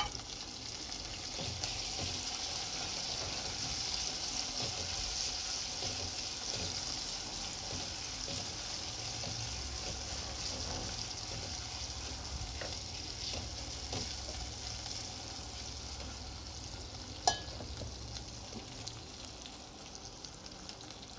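Chopped tomatoes and green chillies sizzling in hot oil in a steel pan as they are stirred, a steady hiss that slowly quietens toward the end. A single sharp clink about 17 seconds in.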